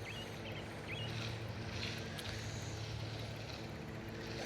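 Steady low hum like a distant engine or traffic, with a few short bird chirps in the first second.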